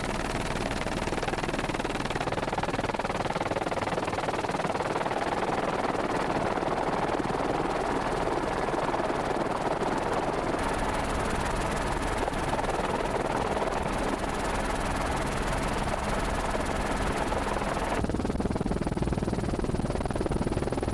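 Steady drone of a helicopter's engine and rotors with a rush of wind noise, heard from the aircraft filming the scene. Near the end the hiss drops away suddenly.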